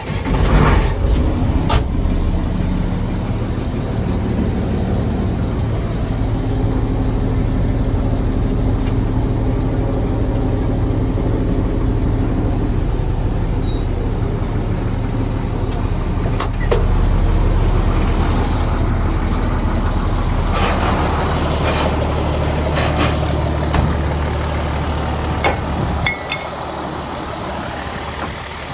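International DT466E inline-six turbo diesel catching and running through a 4-inch straight-pipe stack with no muffler, heard from inside the cab. The engine note rises about 17 seconds in and drops off near the end.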